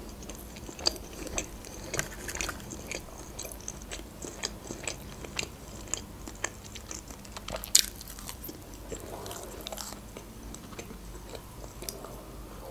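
Close-miked chewing of a soft cottage-cheese pancake (syrnik): wet mouth clicks and smacks, several a second, with one sharper click about eight seconds in.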